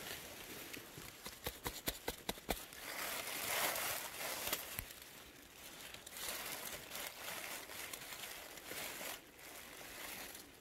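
Rustling and crunching of dry leaf litter and leafy undergrowth as someone pushes through and a gloved hand works among the leaves, with a quick run of small crackles in the first couple of seconds.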